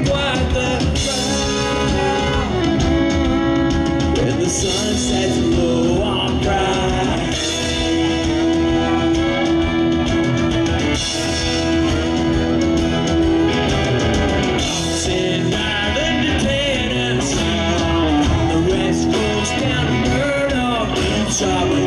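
Country band playing live: drums, guitars and fiddle, with singing.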